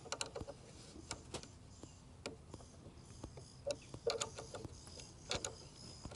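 Faint, irregular light clicks and ticks of an Allen key turning the clamp bolt of a plastic transducer mount on a trolling-motor shaft, snugging it up rather than tightening it hard.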